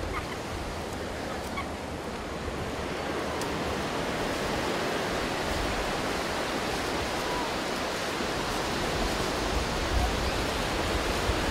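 Ocean surf breaking and washing up the beach, a steady rush of water that gets a little louder about a third of the way in.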